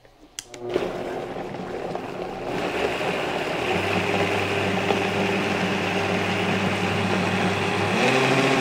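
High-speed countertop blender switched on about a second in, whirring as it purées watery salsa of tomatillos, jalapeños, garlic and water. It runs up to speed over the next few seconds, then runs steadily, its pitch shifting near the end as the speed dial is turned.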